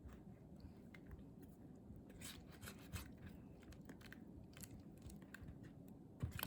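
Faint scraping and rubbing strokes of cupcake batter being stirred by hand in a mixing bowl as the milk is worked in.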